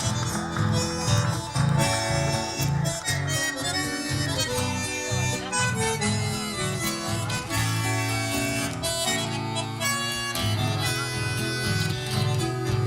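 Chamamé dance music played by a band: an accordion carries the melody over guitar and a steady, rhythmic bass line.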